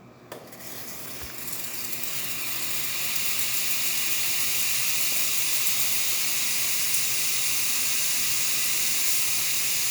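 Breville Oracle Touch steam wand opened after a click, steam hissing out. The hiss builds over the first two or three seconds and then holds steady; it is a test of the steam function after a service.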